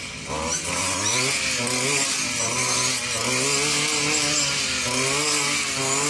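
Petrol brush cutter engine revving up about half a second in, then running at high speed as it cuts through grass and weeds, its pitch wavering slightly.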